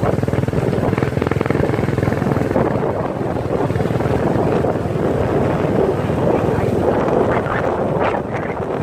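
Small motorcycle running steadily along the road, heard from the pillion seat, with wind rushing over the microphone.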